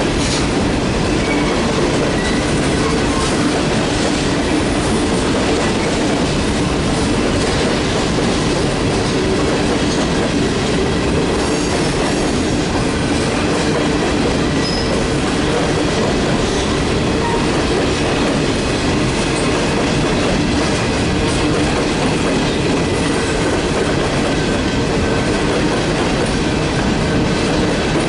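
Empty Norfolk Southern coal hopper cars rolling past at close range: a steady rumble and clatter of steel wheels over the rails, with faint wheel squeal now and then.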